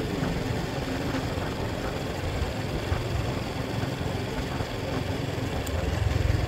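Wind rushing over the microphone of a moving motorcycle, with the engine running under it as a steady low rumble that grows a little heavier about six seconds in.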